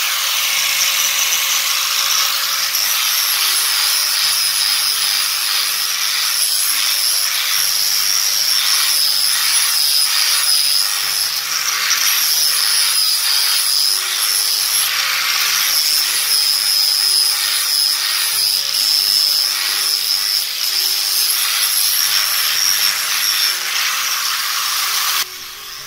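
Angle grinder with a flap disc sanding a wooden stick: a steady high motor whine over a gritty rasp of abrasive on wood. It cuts off about a second before the end.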